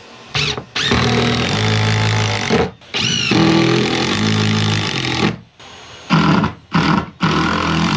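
Cordless drill driving screws into wooden sauna wall boards, running in several bursts of one to two seconds with short gaps between them. The motor's pitch steps down partway through the longer runs as the screw bites into the wood.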